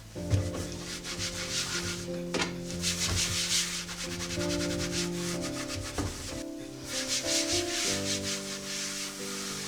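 Scrubbing and wiping: repeated rubbing strokes on a surface during cupboard cleaning, over soft background music with held notes.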